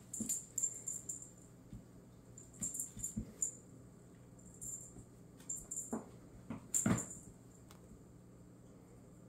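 Kitten playing with a feather wand toy on a hardwood floor: irregular taps, scrabbles and rustles as it swats and pounces, with the loudest knock about seven seconds in.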